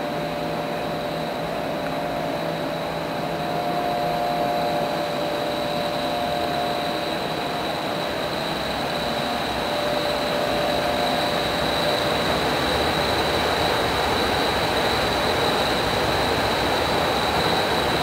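Steady machinery noise of a research reactor facility: a constant rushing hiss with a high whine and lower hum tones, growing slightly louder about ten seconds in.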